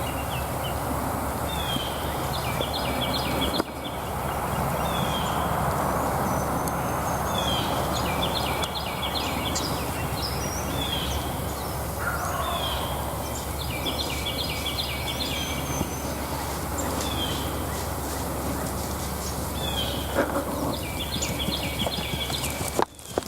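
Wild turkey gobbling, with songbirds singing short repeated phrases throughout.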